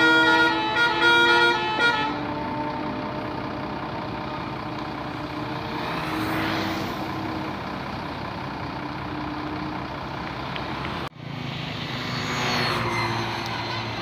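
A bus's multi-note telolet horn playing a stepping melody for about the first two seconds, then the bus engine running with passing traffic. The sound drops out briefly about eleven seconds in.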